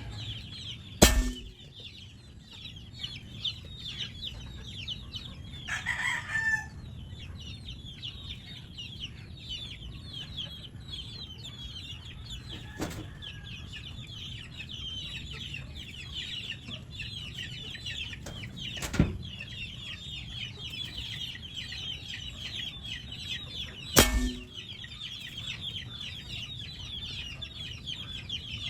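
PCP air rifle firing three sharp shots: one about a second in, one about two-thirds of the way through, and another about five seconds after that. These are test shots through a newly fitted barrel. Chickens cluck and call in the background over a steady high chirping.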